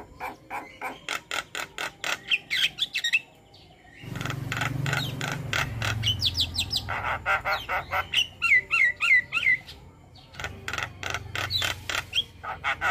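Starling (jalak) song: rapid clicking chatter mixed with short whistled glides, delivered in several dense phrases, with a low hum underneath in two stretches.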